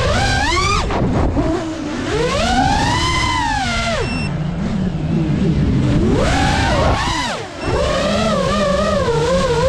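GEPRC Mark5 FPV quadcopter's brushless motors and propellers whining, the pitch swooping up and down with the throttle and dropping away briefly a few times, over a steady low rush of wind and prop wash.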